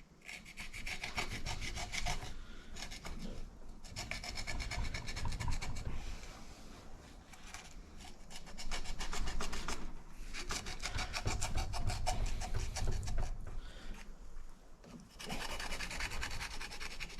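A utility knife sawing and scraping through duct tape wrapped around the nail gun's cylinder head, trimming off the excess. It comes in stretches of quick rasping strokes with short pauses between them.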